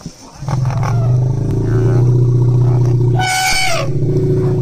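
Indian one-horned rhinoceros calling: a long, steady low moan that starts suddenly, with a short high squeal falling in pitch about three seconds in.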